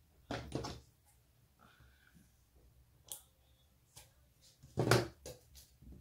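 Handling noise as hands turn a stainless steel tumbler and press small vinyl hexagon pieces onto it: two louder scuffing bursts of about half a second each, one just after the start and one about five seconds in, with a few light taps between.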